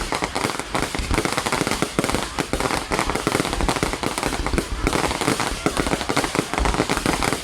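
Fireworks going off in a dense barrage: many rapid bangs and crackles overlapping without a break, with deeper thuds among them.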